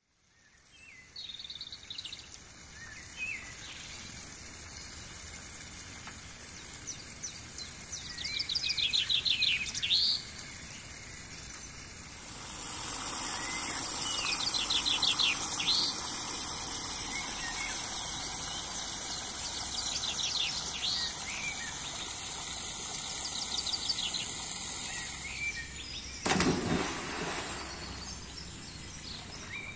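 Songbirds singing repeated rapid trills over the steady splash of water welling up and churning at the surface of a garden pond. The water noise grows louder about twelve seconds in, and there is a brief knock near the end.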